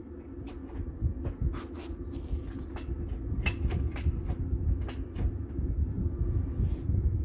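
A run of sharp metallic clinks and knocks, thickest in the middle seconds, over a steady low hum and rumble, from metal parts and tools being handled while a car engine is lifted out.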